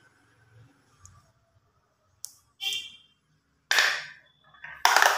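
Marbles rolling and clattering down a carved wooden wavy slope track, heard as three loud bursts of rattling noise in the last second and a half. A short click with a brief ring comes just before, near the middle.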